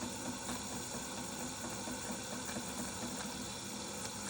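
Automatic espresso machine running its milk-system cleaning cycle: a steady pump hum at an even level.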